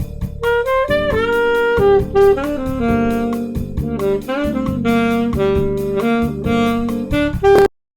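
Saxophone improvising a jazz phrase over a backing track of drums and chords in E minor, its melody built around the chord's minor third. The sound cuts out completely for a moment near the end.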